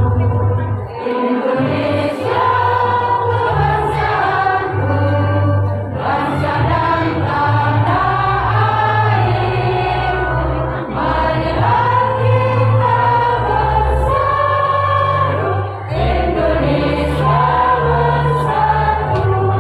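Women's choir singing in unison, conducted, in phrases of about five seconds with short breaths between them, with a steady low bass underneath.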